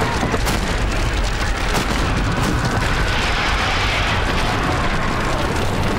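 Large fire burning, with a steady deep rumble and frequent sharp crackles and pops.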